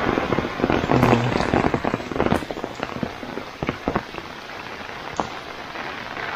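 Heavy tropical rain falling steadily, with many sharp close drop taps through the first few seconds; it gets quieter after about two and a half seconds.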